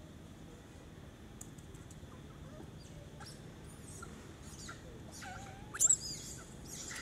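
Young long-tailed macaques squealing in short, high-pitched cries with quick up-and-down pitch sweeps. The cries start faint about halfway through and grow louder, with the loudest near the end.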